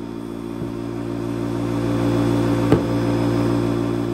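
Air rushing through a trigger-operated tyre inflator into a lawn mower tyre over a steady low hum, swelling and then easing off, with one sharp click a little under three seconds in.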